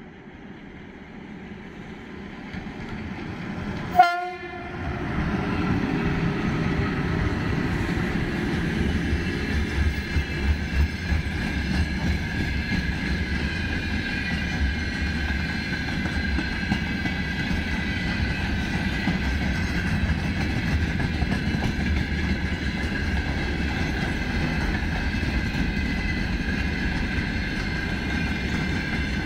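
VL11 electric locomotive's horn sounds one short, sharp, high-pitched toot about four seconds in as the train draws near. Then a freight train of loaded gondola wagons rolls steadily past with a continuous rumble and wheel clatter over the rail joints.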